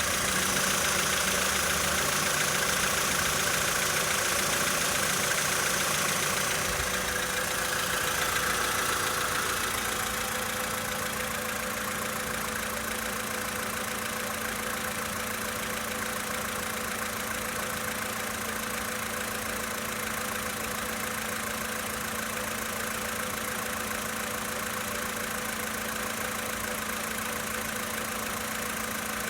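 VW Polo Sedan's four-cylinder petrol engine idling cold, with the engine knock the owner is recording on a cold engine. The sound gets slightly quieter about eight to ten seconds in, then runs on evenly.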